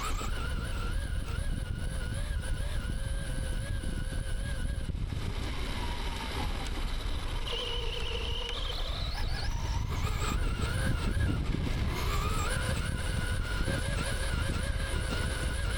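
Brushless electric motor of a radio-controlled car whining as it runs at speed. The whine holds steady, drops away about five seconds in, then climbs in pitch again about eight seconds in and levels off, over a steady low rumble.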